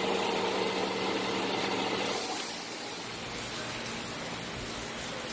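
Shop air compressor running steadily with a low hum, under the even hiss of rain; the sound eases slightly about two seconds in.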